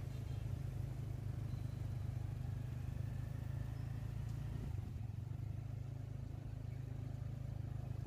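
A steady low engine hum with little change in level.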